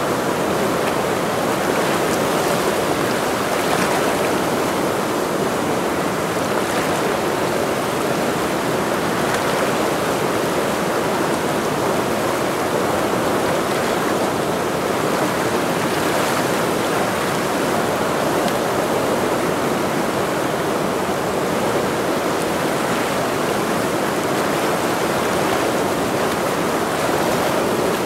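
Rushing water of the Ursul, a mountain river, a steady, unbroken flow.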